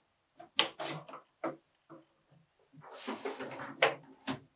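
Plastic knocks and clicks as a canister vacuum's telescopic wand is lifted and pushed into its electric power head, with a rustling scrape about three seconds in. The vacuum's motor is not running.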